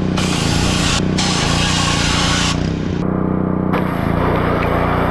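Pressure washer running steadily while a walnut-shell sandblaster attachment sprays in hissing blasts that cut off briefly about a second in and again near three seconds, as the trigger is released and pulled again.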